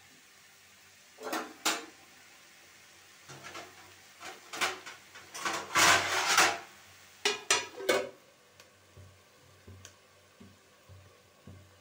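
Metal spatula scraping and clanking against a metal kadhai of cauliflower, then a metal lid clattering onto the pan. The loudest clatter is a little past the middle.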